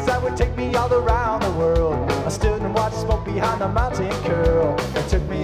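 Live rock band playing an instrumental stretch: electric guitar lead with bending, wavering notes over bass guitar and drum kit.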